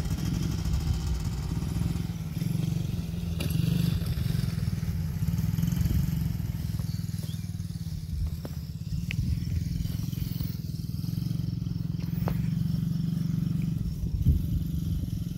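Small ATV engine running steadily, its level swelling and easing a little, with a few faint clicks.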